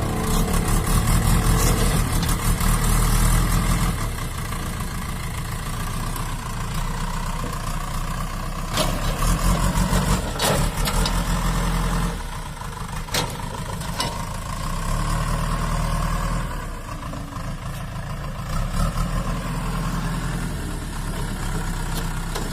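Heavy vehicle engine idling with a steady, throbbing low rumble, and a few sharp clicks around the middle.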